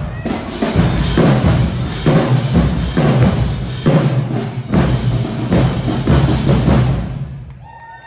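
High school marching band playing a heavy drum-driven beat, with big low hits about once a second, that stops about seven seconds in.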